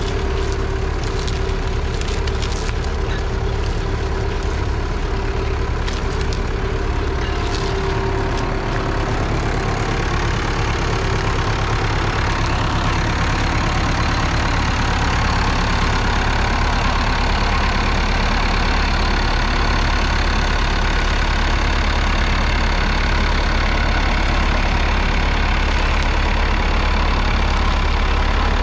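1963 Massey Ferguson 65 tractor's 3.3-litre four-cylinder diesel engine running steadily, growing a little louder partway through.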